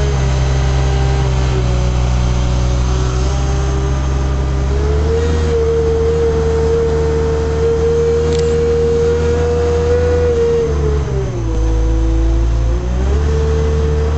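Diesel engine of a heavy-haul truck moving a wind-turbine tower section, running steadily at low speed. Its pitch rises about five seconds in, drops about eleven seconds in and rises again near the end.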